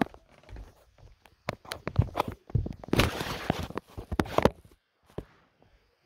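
Scattered knocks and clicks of a handheld phone being moved and footsteps on the floor, with a brief rustling hiss about three seconds in. The siren is not running.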